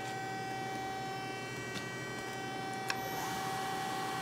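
Hyundai-Kia SKT-160A CNC lathe with its spindle and 3-jaw chuck turning, giving a steady electric whine and hum. There is a single sharp click about three seconds in.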